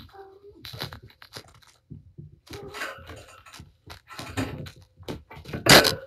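A cat's claws scratching and scraping at a sisal-wrapped cat tree as she rolls and wrestles with it: irregular scratchy scrabbling, loudest near the end.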